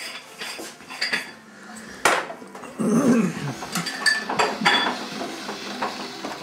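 Kitchen clatter: a series of clinks and knocks of dishes and utensils, one sharp knock about two seconds in, with a brief low vocal sound just after it.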